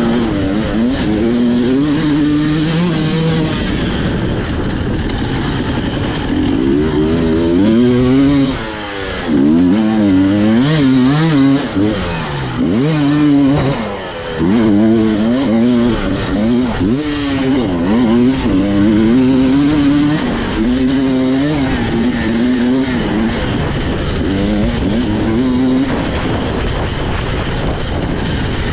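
Two-stroke enduro motorcycle engine being revved hard, its pitch rising and falling over and over as the throttle is worked. It briefly drops off about eight and a half seconds in and again about fourteen seconds in.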